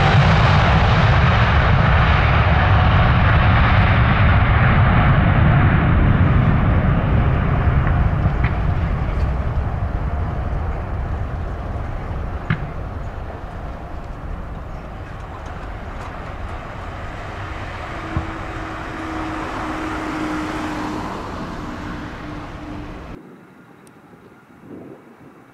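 A Boeing 747's jet engines running loud and then fading as the aircraft climbs away after takeoff, the rumble dulling as it recedes. The sound cuts off suddenly near the end.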